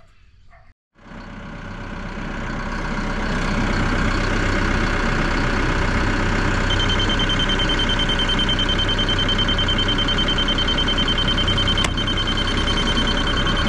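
Crawler dozer's diesel engine running and working, its sound swelling over the first few seconds and then holding steady. About halfway through, a high, rapid, steady beeping joins in.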